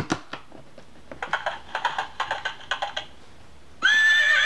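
Plastic push-buttons on a children's sound book panel clicking in a quick run as they are pressed. Near the end the book's little speaker starts a loud electronic sound effect with a wavering pitch, a horse whinny.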